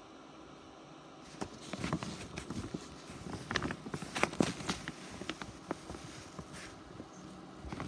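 Irregular soft rustling with light clicks of fabric being moved close by, starting about a second and a half in and thinning out after the middle.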